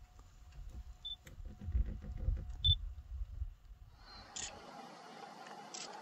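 Nikon camera shooting: two short high autofocus-confirm beeps about a second and a half apart, with shutter clicks and low handling rumble. About four seconds in the sound changes abruptly to a steady outdoor hiss with two short sharp sounds.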